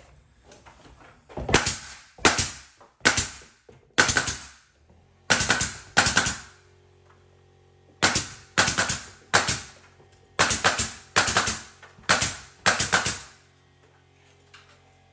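Pneumatic nail gun firing nails into crown molding: about a dozen sharp shots, each with a short hiss of exhaust air, spaced roughly half a second to a second apart in two runs with a pause about seven seconds in.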